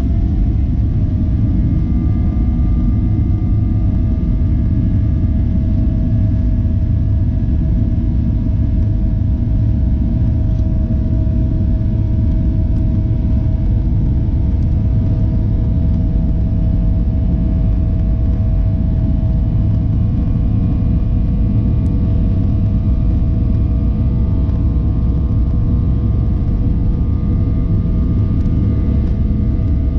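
Cabin noise of a Boeing 737-800 with its CFM56 engines running: a loud, steady rumble with a constant whine above it.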